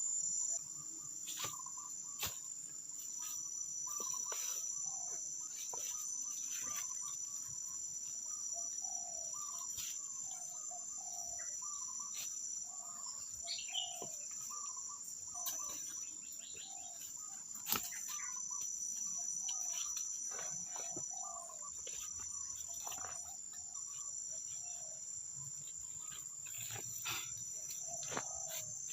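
Forest insects droning steadily at a high pitch, with short, lower calls repeating every half second or so and a few scattered sharp clicks.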